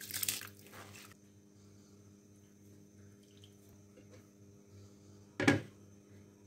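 Soaked rice poured from a bowl into a pan of boiling water, a brief splashing rush in the first second. Then a faint steady hum, and a single sharp clink about five and a half seconds in as a glass lid goes onto the pan.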